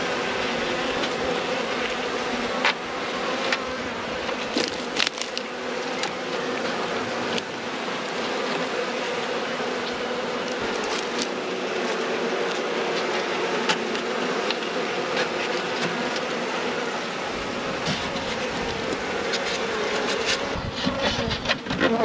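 Honeybees buzzing steadily from an open nuc box, with occasional light clicks and knocks of frames and a plastic queen cage being handled. There is a cluster of louder knocks near the end.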